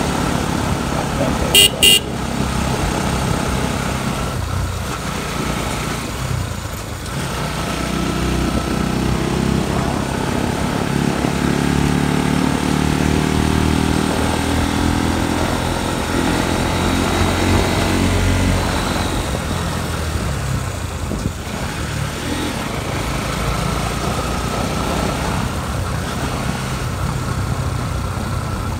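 Motorcycle engine running under way, its pitch rising and falling with the throttle. Two short horn toots sound close together about two seconds in.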